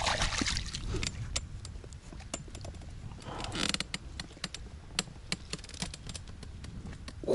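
Fishing tackle being handled: irregular small clicks and light rattles, with a brief rustle about three and a half seconds in, over a steady low rumble.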